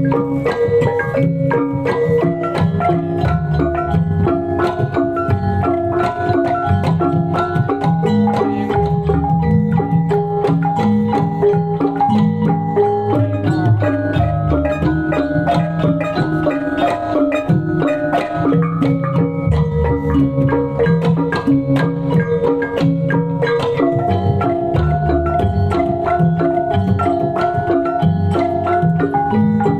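Javanese gamelan music for kuda lumping: struck metallophones ring out a repeating melody over steady drumming.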